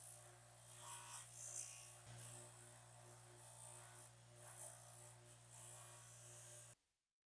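Intermittent rasping strokes of hand work on metal over a steady low electrical hum, which cuts off abruptly near the end.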